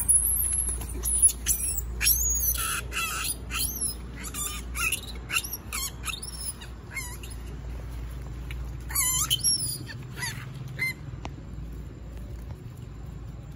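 A young macaque screaming: a run of high-pitched shrieks that rise and fall in pitch, thick and repeated for the first half, with another burst around nine to eleven seconds before they die away.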